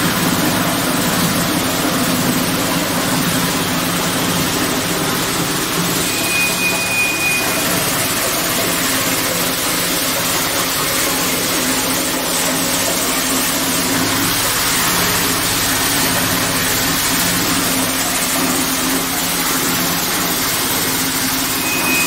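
RG-56120E plastic granulator running steadily under load, its rotor grinding PP pallet plastic into flakes: a loud, dense, unbroken machine noise over a steady low hum.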